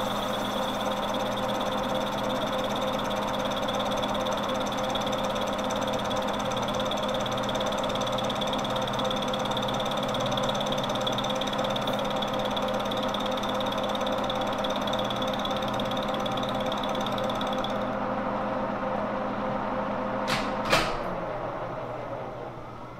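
Monarch lathe running steadily with its headstock gears whining while a high-speed steel tool bit takes a facing pass across a flange in the three-jaw chuck; a thin high tone runs along with it until near the end. About 20 seconds in there are two sharp clicks, and the spindle then winds down to a stop.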